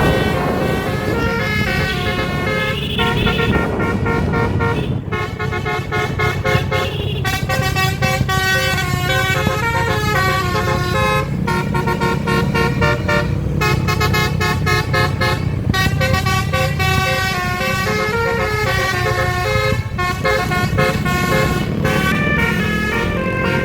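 Basuri V4 telolet horn on a bus playing a tune, its multi-trumpet notes stepping up and down in quick runs, over the rumble of the bus engine.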